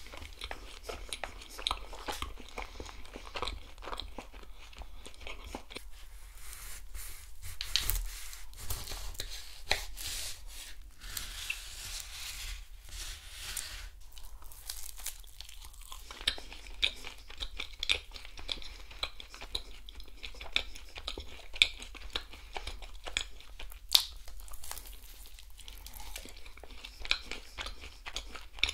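Close-miked eating: chewing and wet mouth clicks, with crunchy bites into an eclair coated in chopped nuts.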